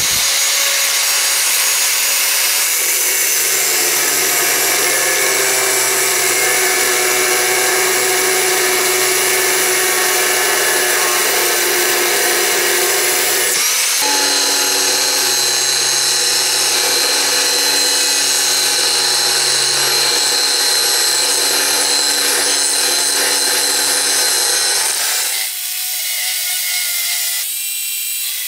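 Black & Decker angle grinder running and grinding leaf-spring steel, a steady high whine mixed with grinding noise. The tone shifts about halfway through, and the sound is a little quieter for the last few seconds.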